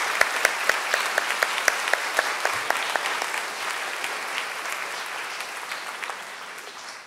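Audience applauding, with a few sharp claps close by at first; the applause thins and fades out near the end.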